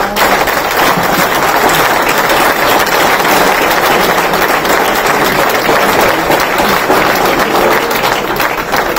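Audience applauding: dense, steady clapping from a roomful of seated guests that begins to thin out near the end.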